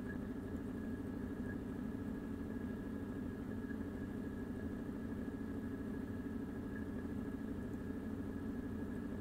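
Steady low hum with a thin, faint high whine above it, unchanging throughout.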